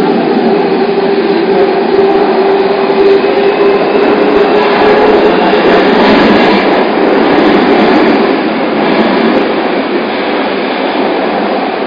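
JR Kyushu 305 series electric train running through a subway tunnel, heard from inside the car. The steady running noise of wheels on rail comes with a held tone from its permanent-magnet synchronous motor drive in the first few seconds. The noise eases off toward the end.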